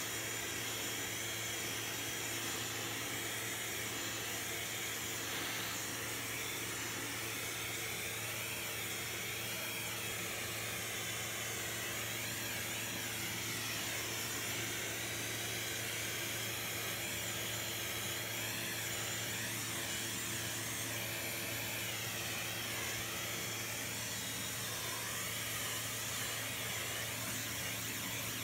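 Vacuum cleaner running steadily with its dusting-brush attachment being worked over a tower fan's grille to suck out dust, the motor's whine wavering in pitch through the middle.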